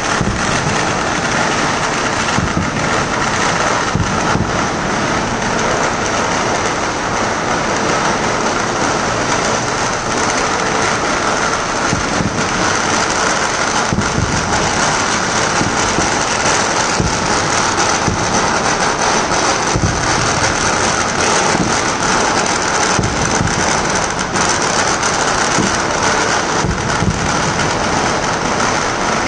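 Dense, continuous crackling of Chinese New Year firecrackers, a rapid unbroken string of small bangs, with deeper booms from aerial fireworks every few seconds.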